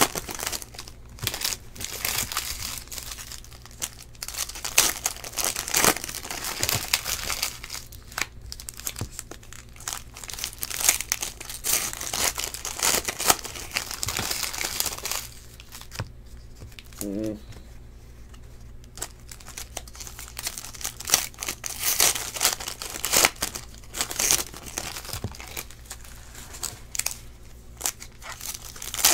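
Foil trading-card pack wrappers crinkling and tearing as packs are ripped open and the cards handled, in many quick crackles, with a quieter stretch about halfway through.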